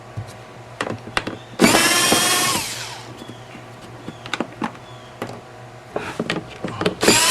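Power screwdriver backing out screws from the plastic evaporator box in two short runs, the second starting near the end; its motor whine falls in pitch as each run winds down. Light clicks and knocks of plastic parts being handled come between the runs.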